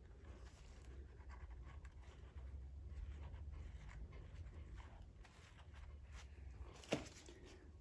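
Faint scratchy rubbing of a new nylon pull-start rope being fed through the hole in a lawnmower's plastic recoil starter housing, with gloved hands on the wound-up pulley. A single sharp click near the end.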